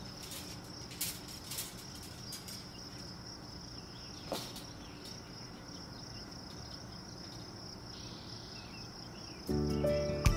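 Steady high-pitched trill of crickets, with a few light clicks from a wire tomato cage being handled. Music starts near the end.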